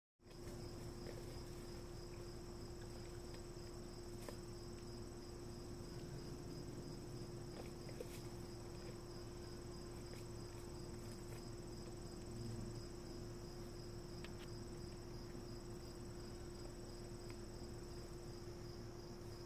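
Crickets trilling steadily at a high pitch, over a steady low hum, with a couple of faint clicks.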